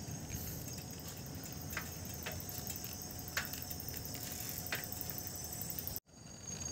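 Crickets trilling steadily at night over a low rush of wind and tyre noise from a moving bicycle, with a few faint clicks. The sound cuts out almost completely for a moment about six seconds in.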